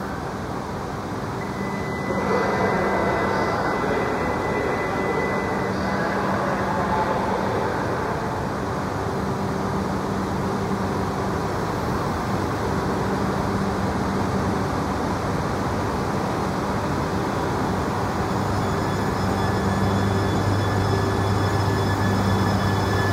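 E3-series Shinkansen coupled to an E2-series set humming at the platform, then starting to pull away: from about 18 seconds in, a low motor hum and faint high whine come in as the train moves off.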